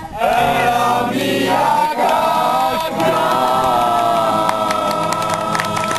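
Group of voices singing the last words of a song, ending on one long held note. Scattered hand claps start partway through the held note as applause begins.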